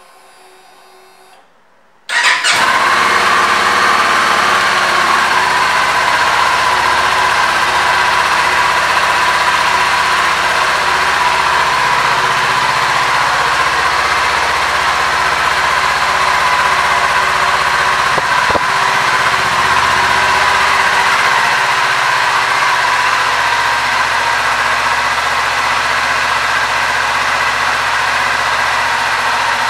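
2021 Kawasaki Ninja 400's parallel-twin engine starting about two seconds in, then idling steadily, its idle easing slightly lower after a few seconds. A single brief click about two-thirds of the way through.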